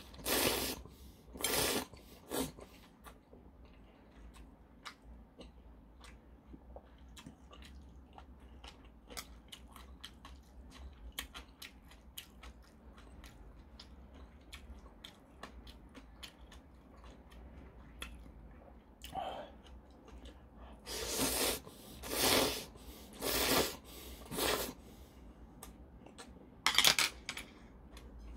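A person eating thick ramen noodles: a few loud slurps right at the start and a run of four slurps later, with chewing and small clicks in between.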